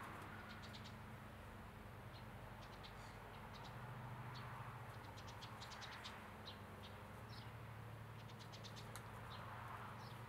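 Faint outdoor ambience: scattered clusters of short, high chirps and ticks from birds over a steady low hum.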